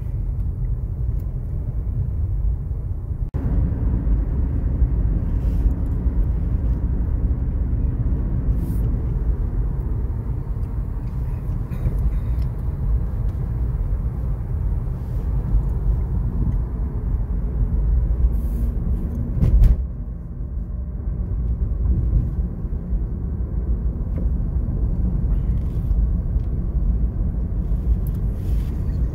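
Steady low rumble of road and engine noise inside a moving car, stepping up in level about three seconds in. A brief louder burst comes about two-thirds of the way through.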